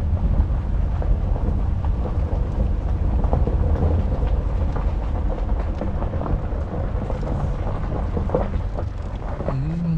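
Steady low rumble of a vehicle driving slowly, with scattered small ticks and crackles over it.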